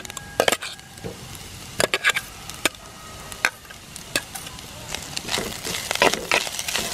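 Metal spatula scraping ground prawns out of a steel bowl into a clay cooking pot, then stirring them through sautéed grated coconut, in irregular clicks and scrapes over a faint sizzle. The stirring gets busier near the end.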